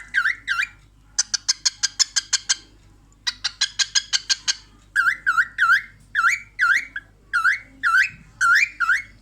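Cockatiel calling over and over in short chirps that dip and rise, about two or three a second. Twice the chirps give way to a rapid run of quick clicking notes, about ten a second, each lasting a second or so.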